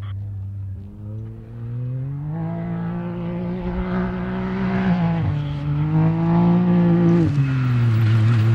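Can-Am Maverick X3 race UTV's three-cylinder engine working hard off-road, its pitch rising twice as it accelerates and falling as it backs off, and getting louder as it comes closer.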